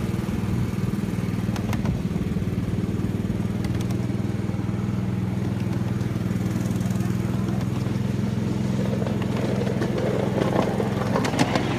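Small engine of a ride-on miniature railway locomotive running steadily at a constant speed under load. About nine seconds in, clicks and rattles of the wheels on the track join it.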